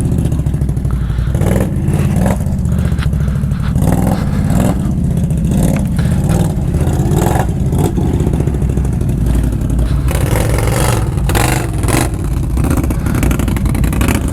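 Can-Am ATV engine running close by, with many knocks and clatter over rough ground, the knocks coming thicker about ten seconds in.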